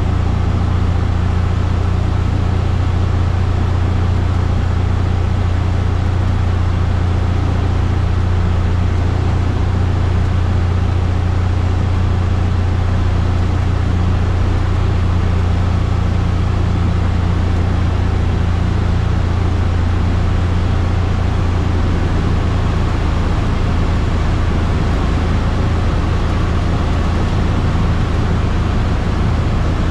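Cessna 172F's Continental O-300 six-cylinder engine and propeller, a loud, steady low drone with a hiss of airflow over it, heard inside the cabin.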